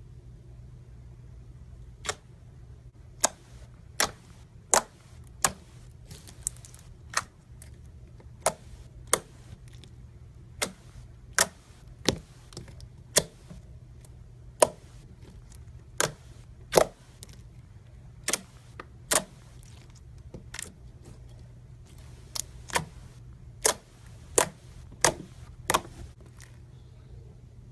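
Finished slime being pressed and poked by hand, giving sharp clicking pops at irregular intervals, roughly one a second, over a low steady hum.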